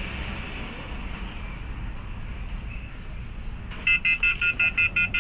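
Rapid electronic beeping that starts nearly four seconds in, about six short pitched beeps a second, over a low steady hum.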